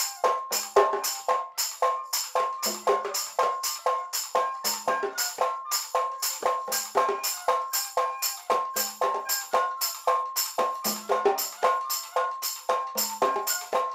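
Percussion music: an even, steady rhythm of sharp jingling strokes, about three a second, with a ringing pitched tone and low drum notes running through it.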